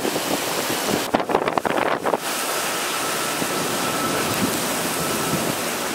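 Hurricane-force wind and heavy driving rain, a steady dense rushing with wind buffeting the microphone. About a second in there is a short stretch of harder, lower gusting.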